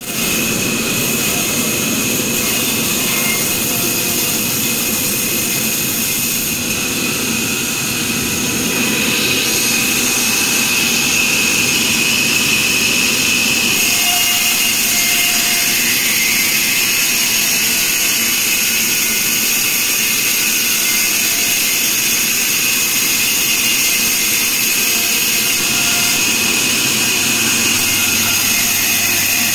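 Large wheeled band saw running and sawing lengthwise through a log: a loud, steady hiss of the blade in the wood, with steady high tones from the running machine over it.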